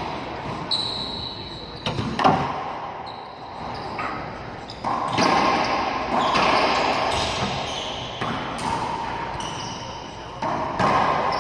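Racquetball rally in an enclosed court: about eight sharp cracks of the ball off racquets and walls, each echoing in the bare room, with short high sneaker squeaks on the hardwood floor in between.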